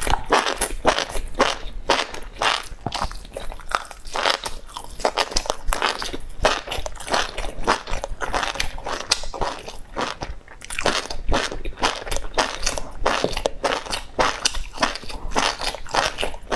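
Close-miked eating: biting and chewing mouthfuls of chili-coated enoki mushrooms, a fast run of wet, crunchy chewing sounds several times a second, with a short pause about ten seconds in.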